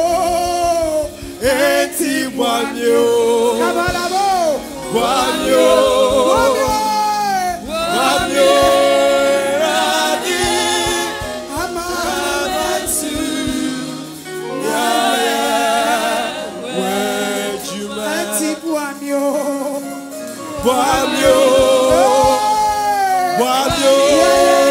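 A woman singing a gospel praise song into a microphone, with backing singers joining in over the accompaniment.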